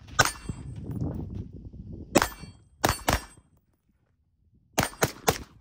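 Suppressed Aero Precision short-barrelled rifle firing seven shots: one, then three, then three in quick succession near the end.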